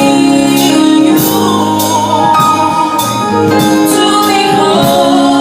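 Live gospel worship music: a band playing with a steady drum beat under a sung melody.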